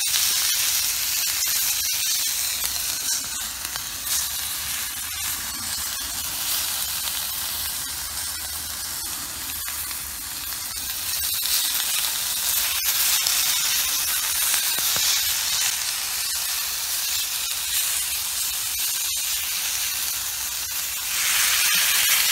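Chicken pieces sizzling in a black iron frying pan over a wood campfire. The sizzle is steady, then grows louder near the end, once a sauce is in the hot pan.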